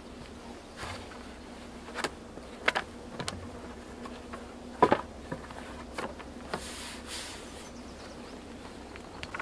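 An insect buzzing steadily, with a few sharp wooden knocks as a birch board is set down on a log rack and handled, the loudest about five seconds in, and a brief rustle about seven seconds in.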